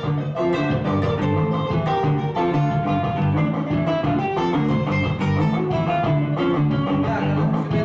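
Guitar music: a quick, steady line of plucked notes.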